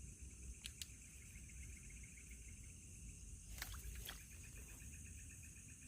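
Night insect chorus: a steady high-pitched buzz with a faster pulsing trill beneath it. A few faint clicks come about half a second in and again around three and a half to four seconds.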